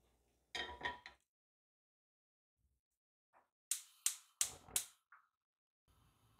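Nonstick wok set down on a gas hob's grate, then a gas burner's spark igniter clicking four times in quick succession and the burner lighting with a faint steady hiss near the end.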